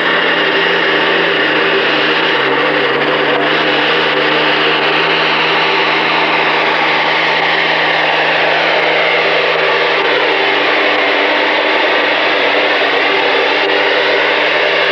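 Pulling tractor's engine running hard and steady under load while it drags a weight-transfer sled. Its pitch sags a little about a third of the way in and climbs again near the end.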